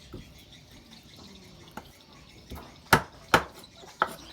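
Knife chopping on a cutting board: a handful of sharp, irregular strikes, the two loudest close together about three seconds in.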